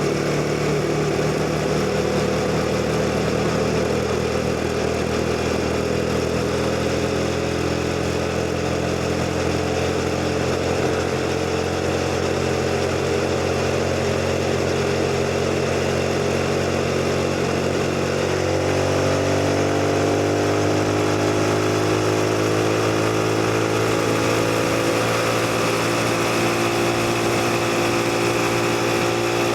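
CFMoto 250NK motorcycle's single-cylinder engine running under way. About two-thirds of the way through its note shifts, then rises steadily as the bike speeds up.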